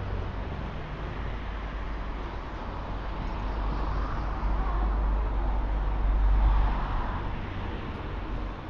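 Street traffic noise, with a road vehicle passing close by: its rumble and tyre noise grow louder to a peak about six seconds in, then fade.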